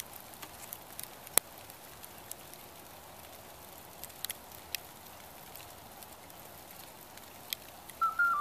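Steady soft hiss with scattered clicks and pops, one sharper than the rest early on. Just before the end a flute-like melody of stepped notes begins.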